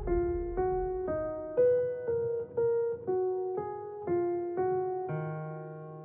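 Background music on a piano-like keyboard, playing a melody of single notes about two a second. It ends on a held, lower chord that fades out.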